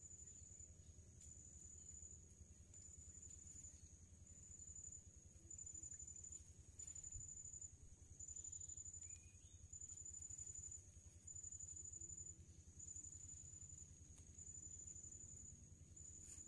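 Faint, high-pitched insect trill, repeating in even pulses just under a second long, over a faint low hum.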